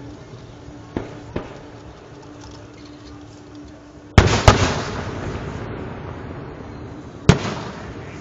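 Fireworks shells bursting overhead: two lighter bangs about a second in, then two very loud booms in quick succession around the middle, each trailing off in a long rumble, and another loud bang near the end.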